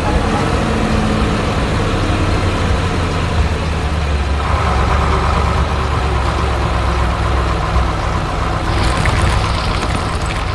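Cement mixer truck's heavy engine running steadily with a low rumble. A higher hum joins about four seconds in, and a rough hiss near the end.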